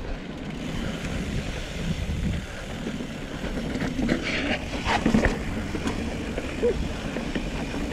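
Mountain bike rolling down a dirt trail: wind rushing over the microphone and tyres running over dirt and rock, with a burst of rattling and clatter about four to five seconds in.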